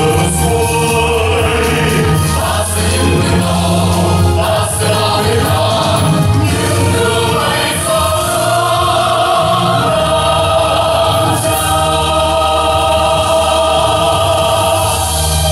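A mixed chorus of men and women singing a song together with a full musical backing, steady and loud.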